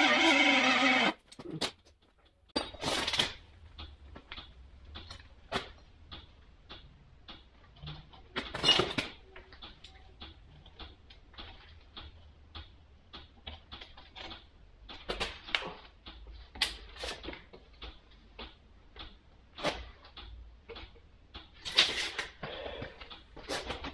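Background music that cuts off about a second in, followed by scattered light clicks, taps and knocks as a steel tape measure is handled and laid against the steel tine frame of a bale handler.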